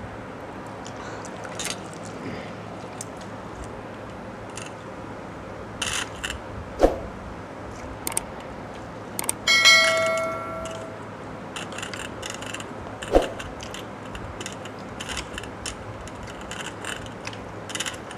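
Small clinks and clicks of eating by hand from stainless steel bowls and plates. About ten seconds in, a loud bell-like ding rings and fades, likely the sound effect of a subscribe-button animation. A sharp click comes a few seconds before the ding and another a few seconds after it.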